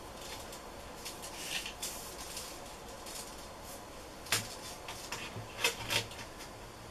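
Tape measure being handled and held against a wall board while measuring: light scraping and rubbing, with a few sharp taps and clicks, the loudest about four and a half and six seconds in.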